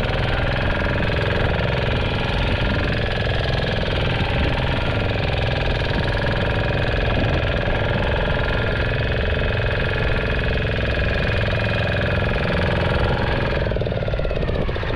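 Fishing boat's engine running steadily, a dense, even drone; its higher tone drops away shortly before the end.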